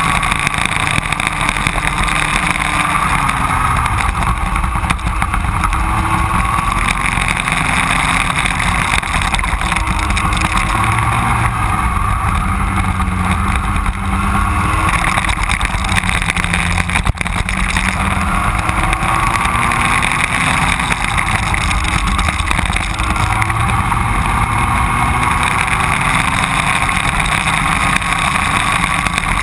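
Racing kart engine running hard, heard from on board, its pitch repeatedly rising as it accelerates and falling as it slows for corners.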